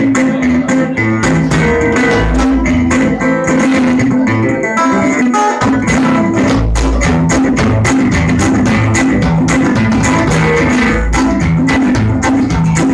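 A metal-bodied resonator guitar is picked in quick, dense notes while an upright double bass plays low notes under it. The passage is instrumental, with no singing.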